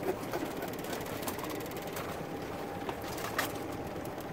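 A few light clicks and taps as crabs are handled and measured with a plastic crab gauge at a wire crab ring, over steady background noise.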